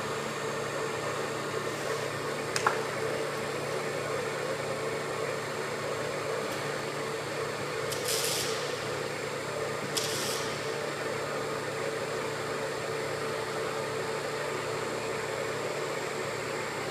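Şahinler IMAT BC18 clay vacuum press (de-airing pug mill) running and extruding, with a steady mechanical hum. There is a single click a little under three seconds in, and two short hisses about eight and ten seconds in.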